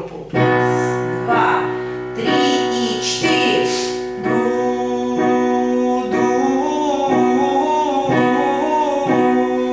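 A voice singing sustained notes over piano accompaniment, the notes changing every second or two, with the pitch wavering on the held notes in the second half.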